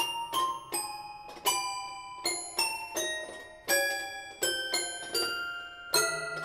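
Toy piano playing single struck notes in descending scales, each with a bright, bell-like ring. About six seconds in, the notes come faster and overlap.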